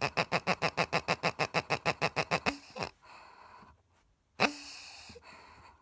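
Latex pig squeaky dog toy grunting: a fast run of short oinking squeaks, about eight a second, for the first two and a half seconds, then two single squeezes about two seconds apart, each trailing off into an airy hiss.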